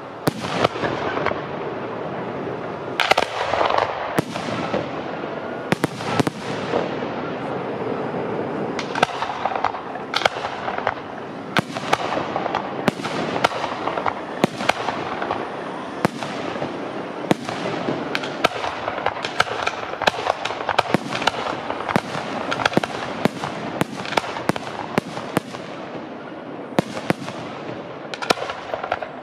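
Aerial fireworks display: a fast, irregular series of sharp shell bursts and bangs over continuous crackling, with no let-up.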